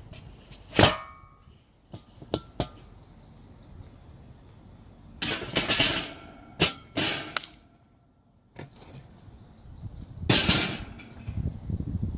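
Metal kitchenware handled: a sharp clang with brief ringing about a second in, a few light clicks, then several short scraping or rustling noises.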